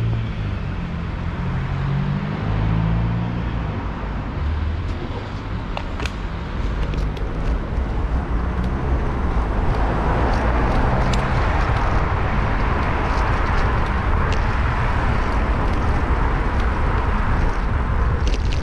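Street traffic heard from a bicycle-mounted action camera, with heavy wind rumble on the microphone. A vehicle engine hums near the start, and a louder steady rushing noise builds from about halfway, with scattered light clicks and rattles.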